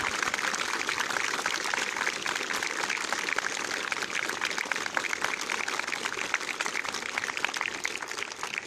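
Many people applauding steadily, a dense patter of clapping hands that starts to die away near the end.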